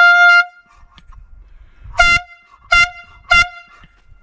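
Handheld compressed-gas air horn blasting a single pitched tone: one half-second blast at the start, then three short blasts in quick succession in the second half.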